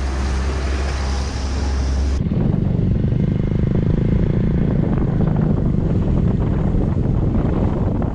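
A road vehicle on the move, with steady engine and road noise. About two seconds in the sound changes abruptly to a louder, rougher stretch of running noise.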